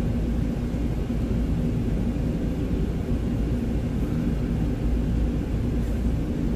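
Diesel engine of a 2020 Freightliner Cascadia semi truck running steadily, a low rumble heard from inside the cab.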